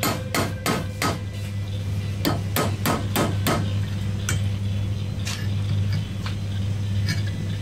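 Hammer striking steel in two quick runs of blows, about three a second, then a few lighter, spaced-out taps, over a steady low hum.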